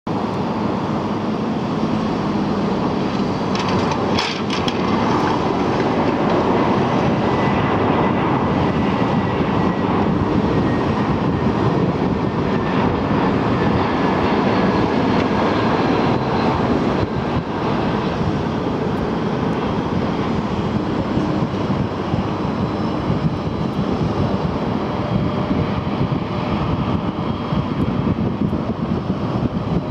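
Airbus A321 jet engines on final approach and through the landing roll: a steady roar, with a faint whine sliding down in pitch in the middle.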